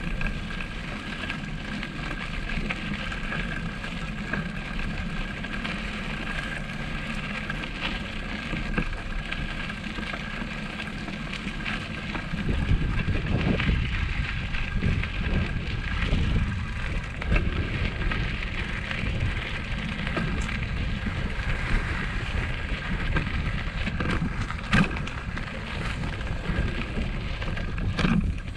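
Bicycle riding over a rough, stony dirt trail: tyres crunching and rattling over the ground, under a faint steady high tone. About twelve seconds in the ride gets bumpier, with a heavier low rumble and irregular jolts.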